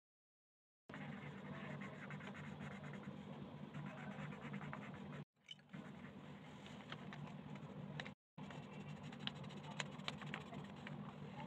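Colored pencil scratching across paper in quick, continuous shading strokes. It is broken twice by brief, abrupt dropouts to dead silence, and it starts about a second in.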